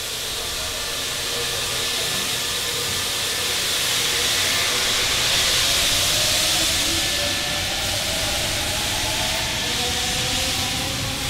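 NSWGR 32 class (P class) 4-6-0 steam locomotive 3237 hissing steam steadily as it pulls away, with no distinct exhaust beats. A faint whine slides upward in pitch in the second half.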